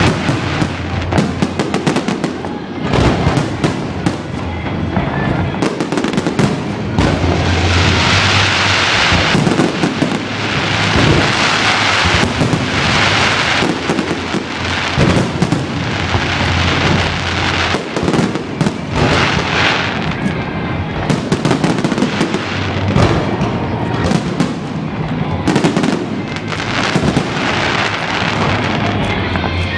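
Aerial fireworks going off in a dense, continuous barrage of bangs, with stretches of thick crackling a few times.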